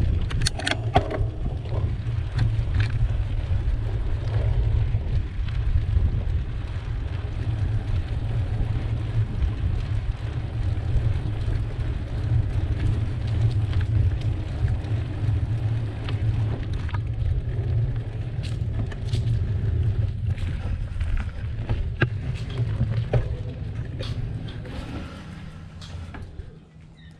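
Steady low rumble of wind and road vibration on a bicycle-mounted camera as the bike rolls along a paved path, with scattered clicks and rattles. It fades near the end as the bike comes to a stop.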